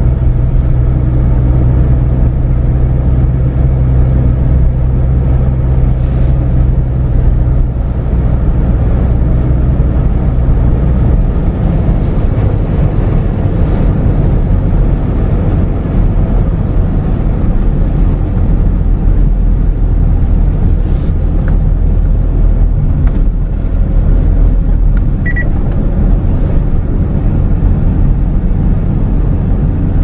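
Engine hum and road noise of a moving car, heard from inside the cabin. It is a steady low drone for the first several seconds, then turns into a rougher, even rumble from about ten seconds in.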